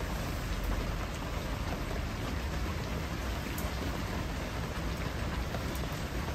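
Rain falling steadily, an even hiss of drops with a low rumble underneath.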